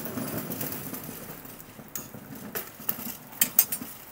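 Metal cooking utensils clinking sharply against a steel griddle: several quick strikes in the second half, the loudest two close together near the end. A low rumble runs underneath in the first second or so.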